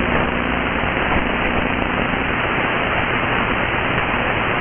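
Shortwave software-defined radio (SDRplay nRSP-ST) putting out loud, steady static hiss while it is tuned between stations on the 49-metre band. The hiss is cut off sharply above about 3.5 kHz by the receiver's filter, with faint low hum tones under it; one of them drops out about halfway through.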